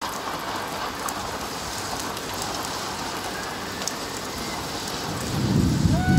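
Steady rain hissing on a rooftop and street, with scattered sharp drips. A low rumble builds about five seconds in.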